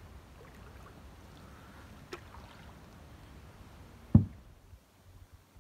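Canoe being paddled through still water: a soft steady swish of the paddling, a light click about two seconds in, and one loud hollow knock about four seconds in.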